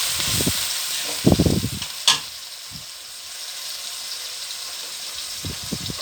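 Onion, chili and ginger-garlic paste sizzling in hot oil in a kadai just after a splash of water, with a spatula stirring and scraping against the pan a few times and one sharp knock about two seconds in. The sizzle eases off after about two seconds.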